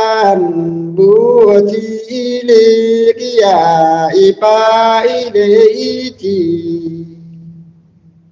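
Nùng folk singing: a voice holding long, wavering sung notes over a steady low tone, dying away near the end.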